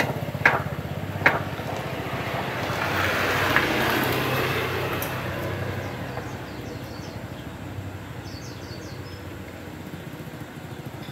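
Restored motorcycle's engine running steadily, with a few sharp clicks in the first second or so and a swell of louder rushing noise about three to four seconds in that then eases off. A bird chirps faintly near the end.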